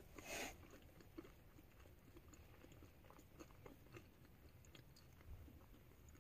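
Faint chewing of french fries: soft scattered mouth clicks at a very low level, with one brief hiss about half a second in.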